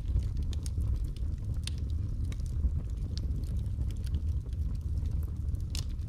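Wood logs burning in an open fireplace: a steady low rumble from the fire with scattered sharp crackles and pops, one of the loudest pops near the end.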